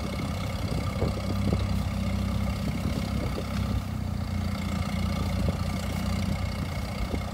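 Farmall M tractor's four-cylinder engine running steadily under load, pulling a two-bottom plow through sod.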